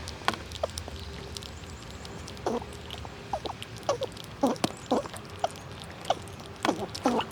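Squirrels chewing and cracking nut shells at close range: irregular sharp crunches and clicks, coming more thickly near the end.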